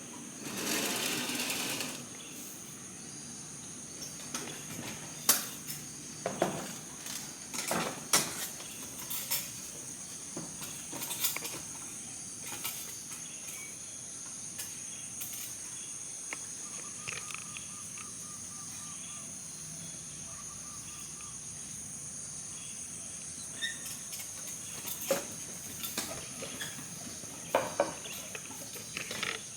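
Steady high-pitched drone of insects, one even note held throughout. Over it come a brief rustle near the start and scattered clicks and knocks.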